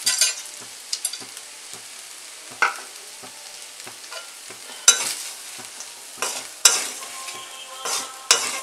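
Peanuts dropping into a kadai of fried rice, then a perforated steel spatula scraping and clanking against the pan as the rice is stirred, about eight sharp strokes over a steady frying sizzle.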